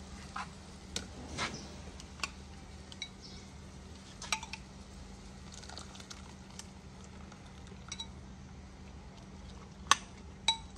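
Kitchen utensils clinking and knocking against pots and bowls in irregular single strikes, the loudest two near the end, over a faint steady low hum.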